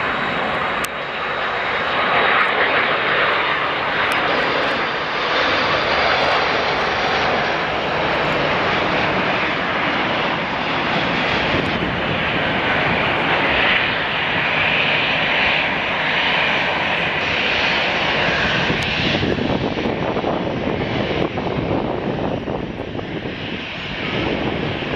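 Airbus A330-200 airliner landing, its two Pratt & Whitney PW4000 turbofan engines running loudly and steadily through final approach and touchdown. About two-thirds of the way through, the sound turns to a deeper, broader rumble as the jet rolls out on the runway.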